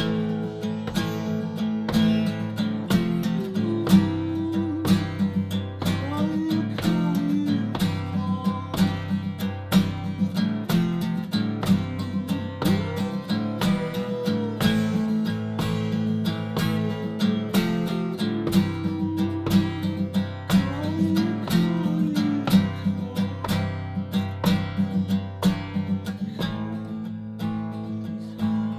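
Acoustic guitar played steadily, a run of plucked and strummed notes over a sustained chord bed.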